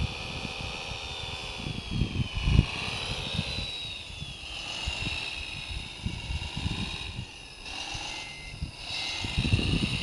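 Whine of a 1/14-scale RC wheel loader's electric drive and gearing as it drives over gravel, its pitch rising and falling as the speed changes. Wind gusts buffet the microphone with a low rumble, strongest a couple of seconds in and near the end.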